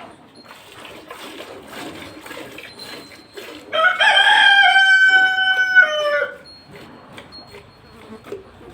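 A rooster crowing once: a single long call of about two and a half seconds, midway through, that steps down in pitch at its end. Faint scattered clicks and rustling lie under it.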